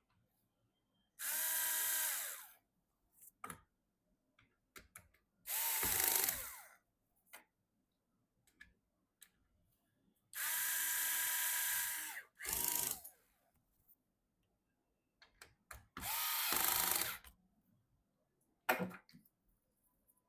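Electric screwdriver driving screws in short runs of a second or two, about five times, its motor whine dropping in pitch as each run stops, with small clicks of handling in between.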